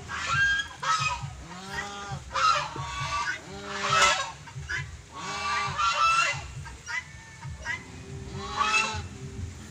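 Domestic geese honking, a string of loud calls one after another, with a short lull near the end.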